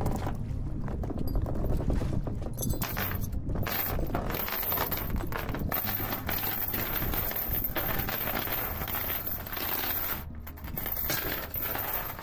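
Metal anchor chain clinking and rattling in irregular clicks as a small boat's folding grapnel anchor and chain are hauled aboard by hand and piled on the deck.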